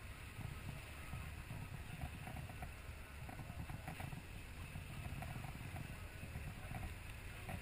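Sport-fishing boat's engine running with a low, steady rumble, mixed with the noise of sea and wind.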